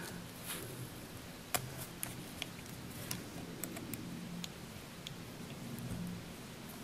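Metal loom hook ticking and clicking faintly against the plastic pegs of a round knitting loom as loops are lifted over, in a few irregular ticks with one sharper click about a second and a half in, over a faint low hum.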